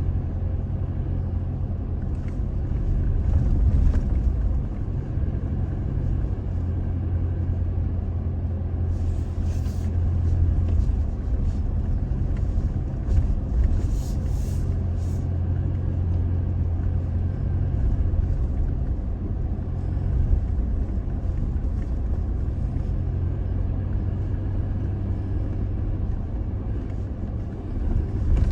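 Toyota Tacoma pickup driving slowly over a rough dirt trail: a steady low engine and road rumble, with a cluster of short clicks and rattles about ten to fifteen seconds in.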